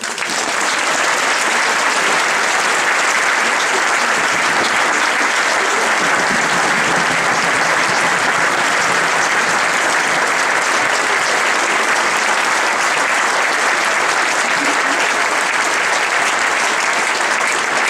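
Large audience applauding, with the cast on stage clapping along: dense, steady clapping that holds at one level throughout.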